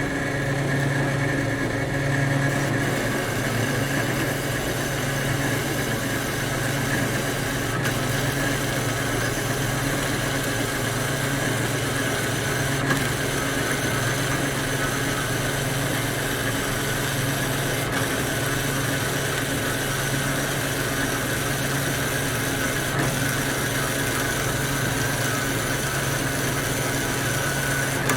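Factory machinery running steadily: a continuous drone with several held humming tones over an even mechanical rush.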